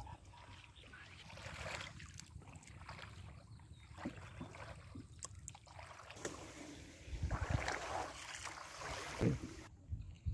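Water swishing and splashing around a small boat moving through the water, louder about seven seconds in and again near the end, with wind rumbling on the microphone.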